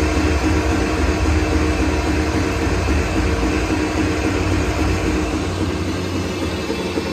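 Hollymatic 180-A mixer grinder running empty, its mixing paddles turning in the stainless steel hopper: a steady mechanical hum over a low rumble.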